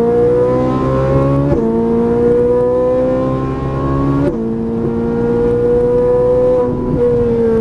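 Ferrari 458 Italia's 4.5-litre V8 under hard acceleration, its pitch climbing with the revs. It drops abruptly with quick upshifts about one and a half and just over four seconds in. The pitch falls near the end as the throttle comes off.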